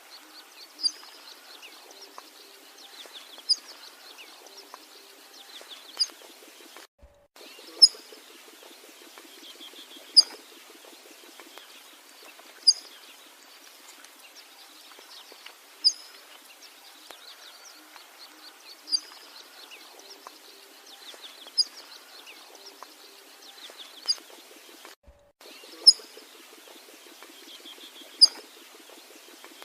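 Bengal florican giving a short, sharp, high-pitched call, repeated about every two and a half seconds, over a steady background of faint birds and insects. The sound cuts out briefly twice.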